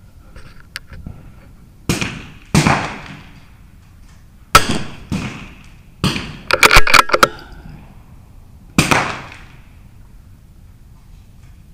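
.22 LR rimfire rifle shots on a shooting range: about nine sharp cracks, each with a short echo, several coming in quick succession around the middle.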